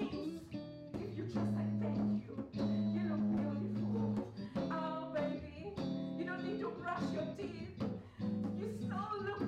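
A woman singing into a microphone with guitar accompaniment. Long held low notes sit under her voice, which moves in short phrases.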